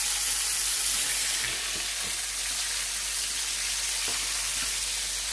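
Marinated chicken tikka boti strips sizzling in hot oil in a frying pan: a steady hiss that eases slightly after about a second, with a few faint pops.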